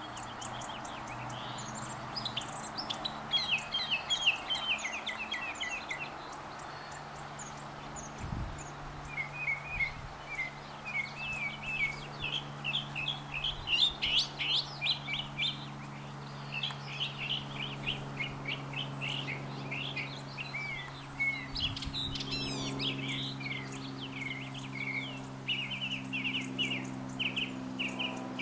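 Northern mockingbird singing: a long run of varied high phrases, each a quick series of repeated notes, with a short pause about six to eight seconds in.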